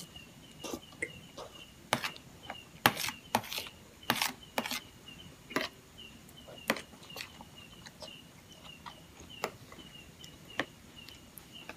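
Eating sounds: a metal spoon clicking and scraping against a plastic plate of rice in coconut milk, with close mouth sounds of eating, as a string of sharp, irregular clicks that are loudest a few seconds in. A faint high chirp repeats about three times a second throughout.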